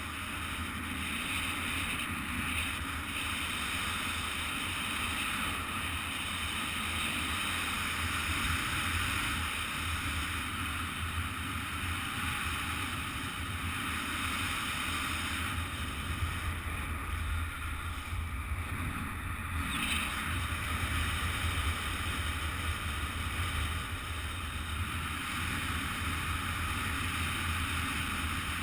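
Steady rush of wind over the microphone of a speedwing pilot in flight, with most of its weight in a low rumble and small swells in strength.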